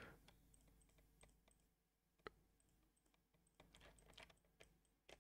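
Near silence broken by a few faint computer mouse and keyboard clicks: one sharper click about two seconds in and a short scatter of clicks near the end.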